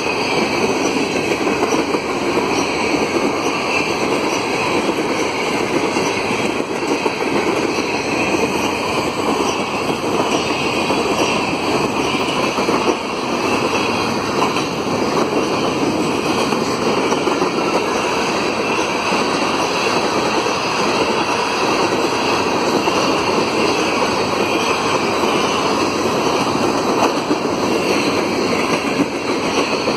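Herzog ballast hopper cars of a freight train running past at speed, a steady loud noise of steel wheels on rail.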